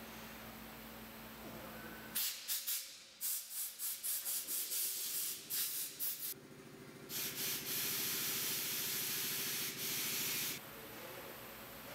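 Compressed-air blowgun blowing out a car's front sunroof drain: a quick series of short hissing blasts, then one long steady blast of a few seconds with a low fluttering buzz under it as the air forces through the drain tube.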